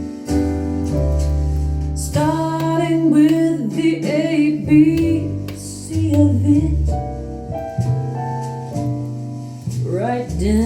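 A recorded song played back through a restored Sansui AU-11000A stereo amplifier: a woman singing long, wavering notes over piano chords and bass, the voice coming in about two seconds in.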